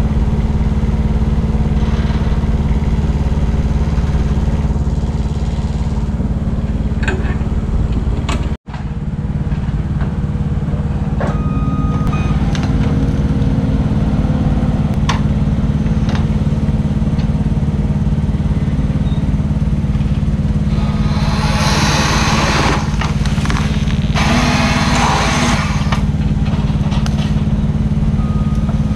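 Engine of a boom-mounted grapple-saw machine running steadily. The sound drops out for an instant about eight seconds in. Near the end come two louder rasping bursts of a couple of seconds each as the grapple saw cuts through the limb.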